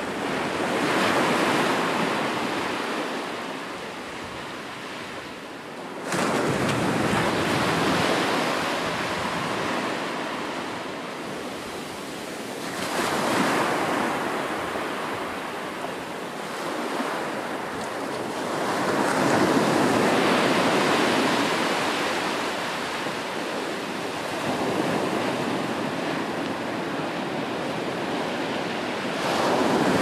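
Ocean surf: waves breaking and washing in, a steady rushing noise that swells and ebbs with a new surge about every six seconds, one of them breaking suddenly about six seconds in.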